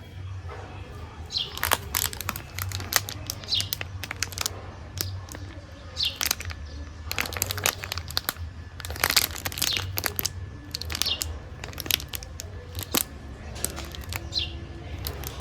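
Snack wrapper crinkling and tearing as it is handled and opened, in a run of irregular crackles.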